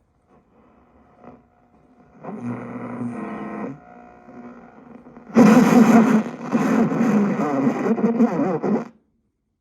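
Original 1966 Dodge Dart AM car radio playing between stations: faint crackle, then about two seconds in a brief garbled snatch of a broadcast, and from about five seconds in a louder stretch of noisy, distorted broadcast sound that cuts off suddenly near the end.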